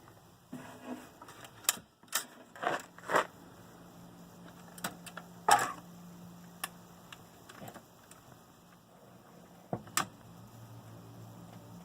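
Sharp clicks and knocks from handling a Zenith X930 record player console, scattered irregularly, with the loudest ones about two, three, five and a half and ten seconds in. A low steady hum comes on about two and a half seconds in and continues.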